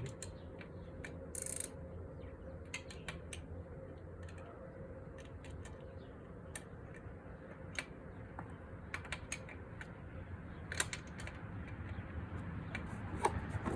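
Scattered light clicks and taps from an oil drain pan and tools being handled under a scooter during an oil drain, with a brief hiss about a second and a half in, over a low steady hum.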